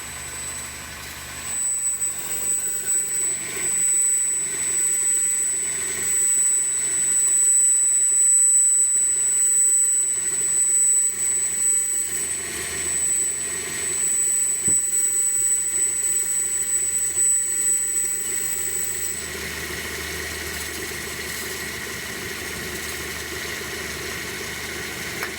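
High-pitched squeal from the A/C compressor clutch of a 1999 Chevy Prizm's 1.8-litre four-cylinder engine at idle, a steady whistle that cuts off about three-quarters of the way through, leaving the engine running. The squeal comes from the rusted, damaged compressor clutch sitting too close to its drive pulley.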